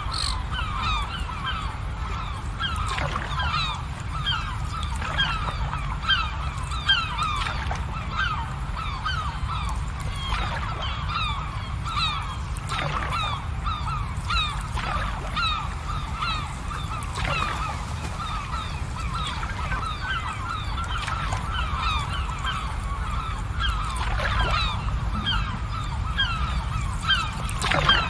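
A dense, continuous chorus of short honking calls from a large flock of birds, over a low steady rumble.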